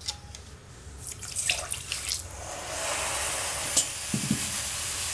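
Water being poured into a stainless-steel saucepan onto a layer of raw sugar. The pour builds from about a second in into a steady splashing stream, with a few light knocks early on.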